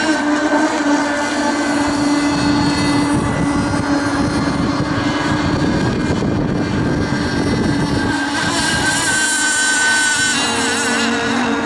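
Several radio-controlled racing powerboats' small engines running flat out together, a steady high-pitched whine. Near the end the pitches shift and one bends as a boat passes close by.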